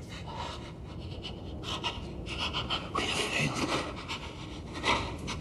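A distressed person panting and gasping in ragged breaths, with short whimpering cries between them.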